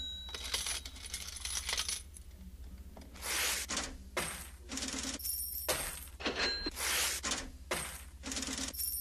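A looping rhythm of clinking coins and cash-register rings, sharp metallic bursts repeating about once or twice a second, opening a piece of music.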